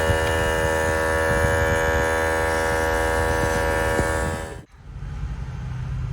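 Portable electric tire inflator running with a loud, steady hum while pumping up a freshly plugged tire. It cuts off abruptly about four and a half seconds in, and a lower steady rumble follows.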